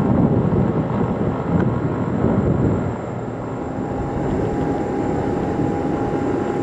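Jet aircraft noise on an airport apron: a Boeing 777 freighter's engines give a steady rumble. About three seconds in this drops to quieter steady jet noise with a thin high whine.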